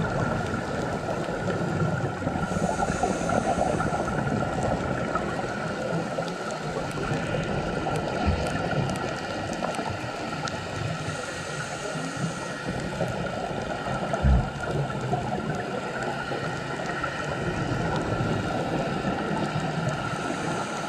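Scuba diver's regulator breathing underwater: a continuous bubbling of exhaled air, with a high hiss of inhaling twice and a steady high hum. A single dull knock about fourteen seconds in.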